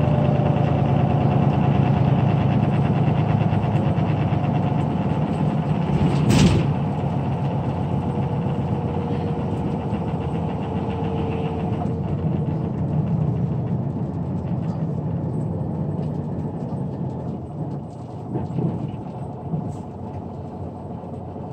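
Cabin drone of a 2009 Granbird Sunshine coach on the move: its Powertec 425 PS inline-six turbodiesel and road noise, a steady low hum. There is one sharp knock about six seconds in, and the drone eases off gradually through the second half.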